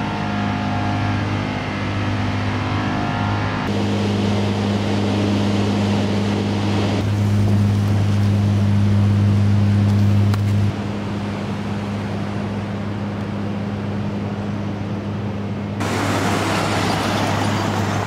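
A car driving along city streets: a steady low engine hum over road noise. The sound shifts abruptly a few times, and a louder rushing hiss comes in near the end.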